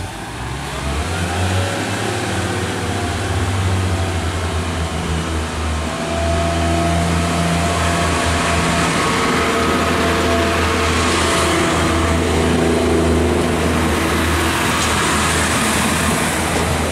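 Class 143 Pacer diesel multiple unit pulling away from the platform: its diesel engines rev up, with tones rising about a second in, then run steadily under power as the carriages pass close by.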